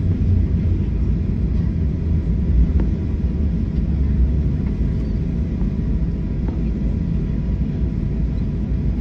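Steady low rumble inside the cabin of a Boeing 737-800 rolling along the runway after landing: engine and wheel noise carried through the fuselage.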